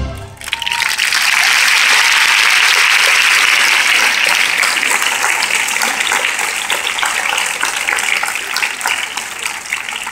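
A large arena audience applauding. The clapping swells up within the first second after the singing stops, holds steady, and thins out near the end.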